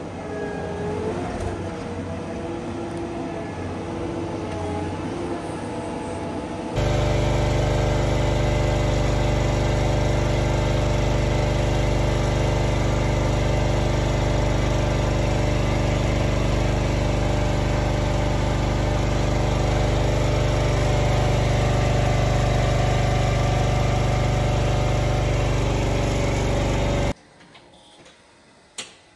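A self-propelled feed mixer wagon's engine and cutter head working into a pile of feed. This gives way to a louder, steady machine hum with a deep drone, heard while milk is pumped through a hose into a calf trough. The hum stops abruptly near the end, leaving quiet with a single click.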